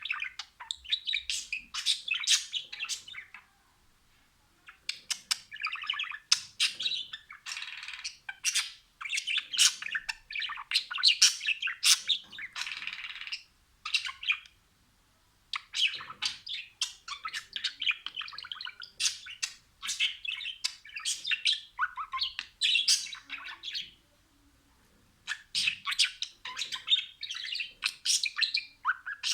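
Budgerigars chirping and warbling in fast runs of high chirps and chatter, broken by a few short pauses of about a second.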